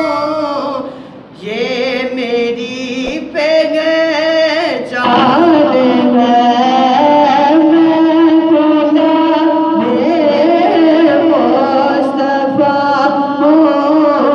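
A man singing an Urdu naat solo into a microphone, with long held notes and melodic ornaments sliding between pitches. His singing dips briefly about a second in, then carries on steadily.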